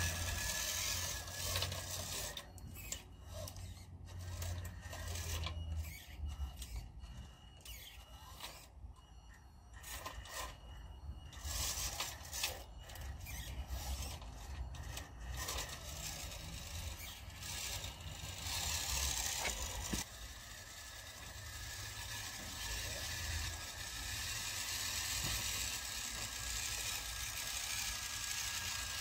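1/16-scale WPL B-1 RC rock crawler truck driving and crawling over brick paving, its small electric motor and gearbox whining while the tyres scrape and scrabble on the bricks. The sound rises and falls as it drives, with scattered clicks and knocks.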